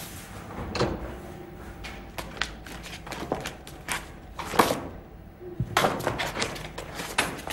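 An irregular string of clicks and knocks with several louder thumps among them, the loudest a little past halfway: close-range handling noises.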